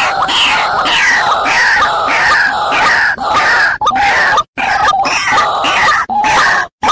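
White-breasted waterhen (ruak-ruak) calls played as a trapper's lure: loud, harsh notes repeated about two a second, each falling in pitch, with a couple of brief breaks.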